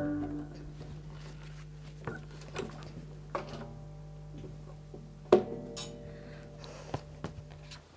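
The last strummed chord of two acoustic guitars dies away, then a handful of knocks and clicks as an acoustic guitar is handled and set into a guitar stand. The loudest knock comes a little past halfway and sets the strings ringing briefly, over a low steady hum.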